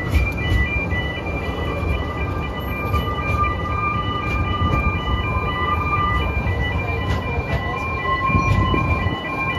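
Level crossing warning alarm sounding a repeating two-tone pattern while a narrow-gauge train's carriages rumble across the road. A long steady high squeal runs through the middle of it.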